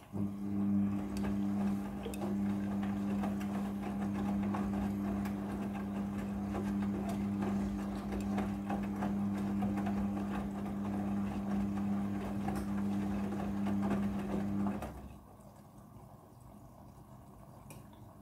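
Midea front-loading washing machine during prewash, its motor running with a steady hum over sloshing and small knocks, then cutting off about fifteen seconds in.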